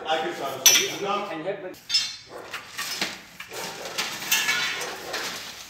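Metal objects clinking and knocking as clutter is shifted about, with several sharp clanks that ring briefly, about two seconds in and again near four seconds; men's voices talk in the first second or so.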